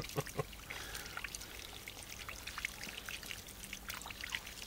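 Water trickling over hands and spattering onto grass as paint is rinsed off them, a run of small irregular splashes and drips.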